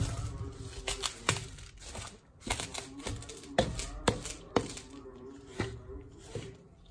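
Washing-powder mix being stirred by hand with a plastic scoop in a steel bowl: gritty scraping of the powder with several irregular sharp knocks of the scoop against the bowl.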